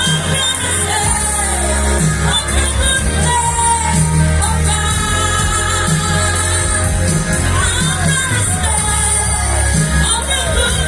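Music with singing: a voice sings over amplified band backing with a steady bass line.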